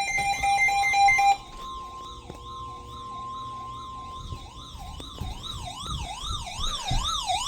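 Emergency alert tones announcing a severe thunderstorm warning: a loud steady buzzing tone for about the first second and a half, then a siren-like wail sweeping up and down about twice a second and growing louder, over a fainter steady high tone.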